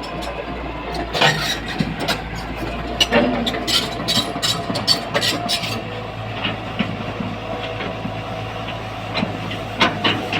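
Komatsu PC240 hydraulic excavator's diesel engine running steadily, with irregular metallic clanks and knocks over it.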